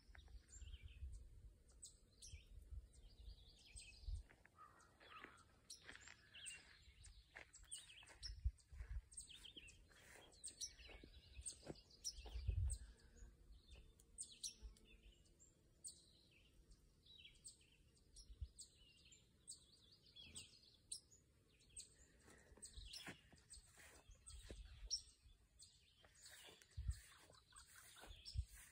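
Faint birdsong: several birds chirping and calling in short, scattered phrases throughout, with a few low thumps on the microphone.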